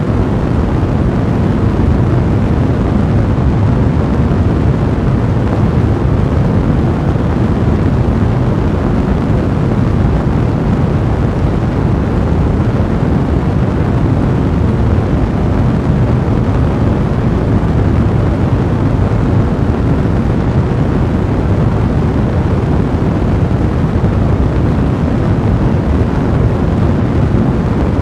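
A fire blazing steadily in a fireplace: a dense, unbroken low rumble of burning that stays level throughout.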